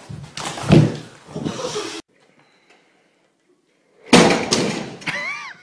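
A heavy thud among clattering knocks about a second in, cut off suddenly. After a stretch of near silence comes a sudden loud crash, followed near the end by a short wavering cry.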